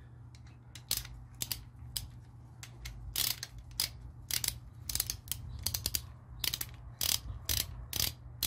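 Click-type torque wrench ratcheting, its pawl clicking in short irregular runs as the handle is worked back and forth, tightening a connecting-rod cap on a MerCruiser 3.0 L crankshaft on the first torque pass of 20 ft-lb.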